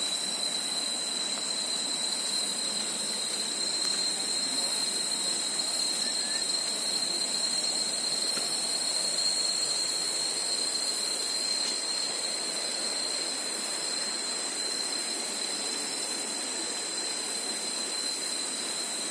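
Forest insects droning: one steady high-pitched tone with a fainter band above it, over an even hiss that never lets up.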